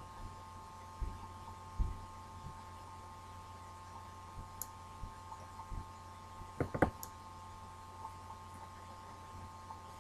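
Scattered faint computer mouse clicks and a few soft low thumps over a steady electrical hum, with a small cluster of clicks a little before the end.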